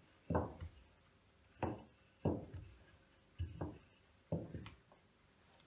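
Wooden rolling pin rolling cake dough thin on a silicone mat: a string of short, irregularly spaced thuds, about six, from the pin's strokes against the counter.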